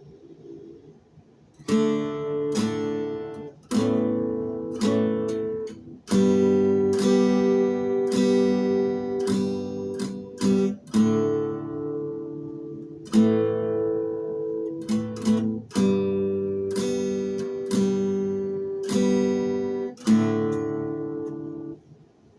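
Acoustic guitar strumming chords with no singing, starting after a brief pause and stopping near the end.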